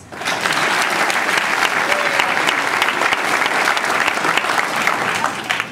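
Audience applauding, many hands clapping at once; the clapping dies away near the end.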